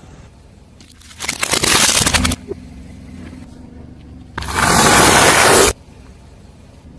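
Objects being crushed under a car tyre: two loud bursts of crunching and crackling, each about a second long, the second denser and louder, with a low rumble of the car between them.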